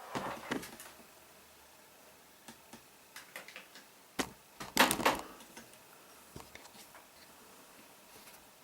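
Handling noise from a camera being repositioned: scattered knocks and clicks, with a louder clatter about five seconds in.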